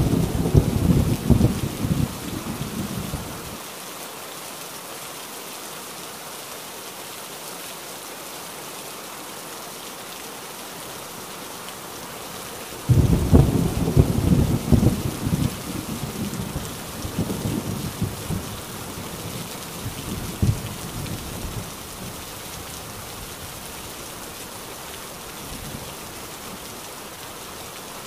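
Heavy rain falling steadily, with thunder: a rumble dying away in the first few seconds, then a sudden thunderclap about 13 seconds in that rumbles on for some eight seconds.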